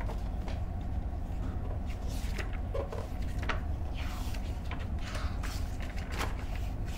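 Thin paper pages of a thick reference book being turned by hand, a series of short rustles and flicks. A steady low hum sits underneath.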